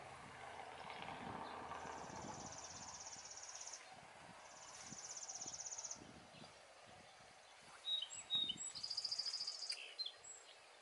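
Birds calling from a cherry tree: two high, fast buzzy trills of about two seconds each, then a burst of sharp chirps about eight seconds in, the birds upset at someone among the cherries.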